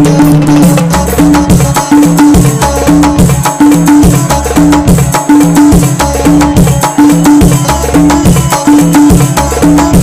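Background music with a busy, steady percussion beat of quick clicks and drum hits over a short repeating low figure.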